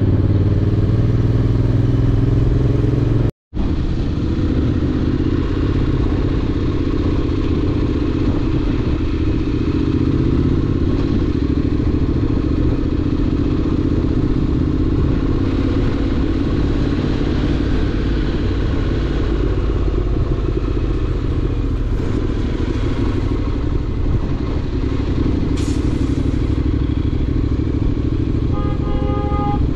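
Honda X-ADV's parallel-twin engine running steadily on the road, its pitch drifting gently with speed under a steady rush of noise. The sound cuts out completely for a moment about three and a half seconds in. A few short, higher steady tones sound near the end.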